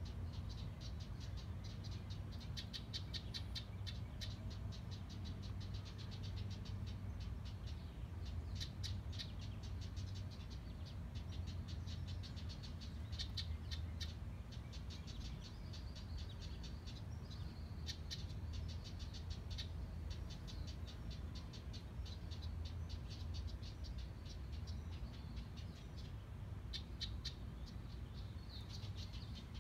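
House wren giving dry, rattling chatter calls, rapid strings of notes in repeated bouts of a second or two, over a low steady rumble.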